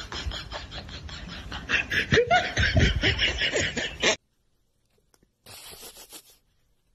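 A person laughing in quick, loud bursts that build from about two seconds in and cut off suddenly after about four seconds. A brief faint noise follows.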